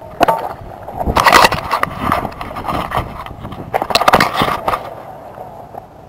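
Camera handling noise: the camera is grabbed, covered by a hand and set down on the concrete quay, with scraping and knocking in two loud bursts about a second in and about four seconds in.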